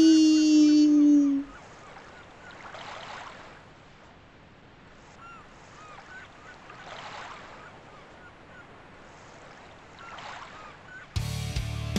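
A loud, held voice-like cry, falling slightly in pitch, stops about a second and a half in. Then soft ocean waves wash in slow swells with a few faint chirps, until music with guitar and drums starts near the end.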